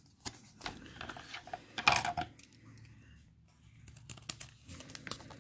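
Paper rustling and crinkling as a folded paper wrapper is worked open by hand, with scattered small taps and clicks and a louder rustle about two seconds in.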